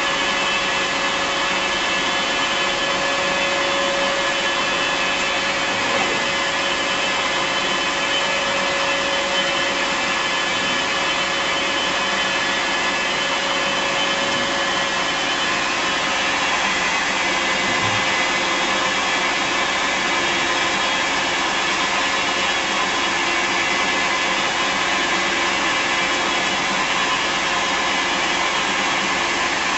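Bridgeport Romi 16x42 EZ-Path CNC lathe running through a program with its spindle turning: a steady machine whine and hum, its pitch shifting about halfway through.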